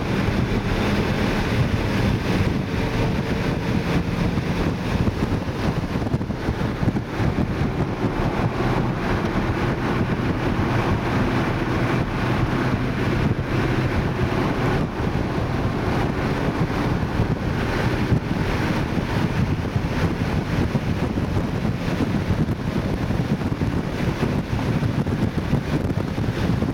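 Cabin sound of a 2012 Mini Cooper S at speed, its 1.6-litre turbocharged four-cylinder engine under load, heard under heavy wind and road noise. The engine's pitch rises and falls faintly as the car accelerates and slows.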